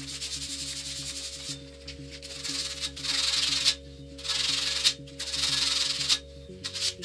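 80-grit sandpaper rubbed by hand along a metal table-leg tube: a run of rasping sanding strokes, about one a second, with a pause near the end.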